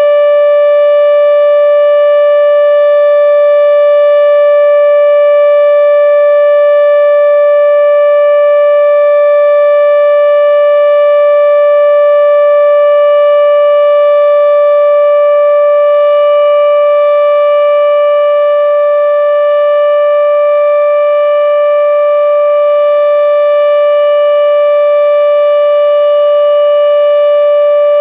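Federal Signal RSH-10B outdoor warning siren sounding during a test, holding one steady, unchanging pitch with no rise or fall, its loudness dipping only slightly about two-thirds of the way through.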